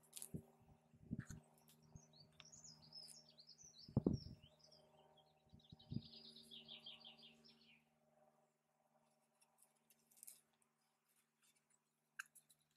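Faint birdsong: a small songbird's twittering phrase that runs into a quick trill, ending about eight seconds in. Scattered soft knocks and rustles of cord being worked around wooden sticks, the loudest a single thump about four seconds in.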